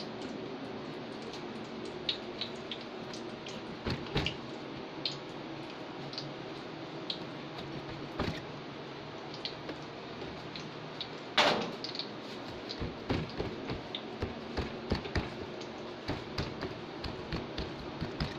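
Light clicks and knocks of pizza dough rounds being handled and set down on a metal baking tray, coming more often in the second half, with one louder knock about 11 seconds in. A steady low hum runs underneath.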